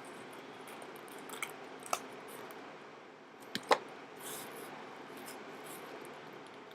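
Faint handling noise in a small room: a few soft clicks and light rustling, the loudest a sharp double click a little over three and a half seconds in.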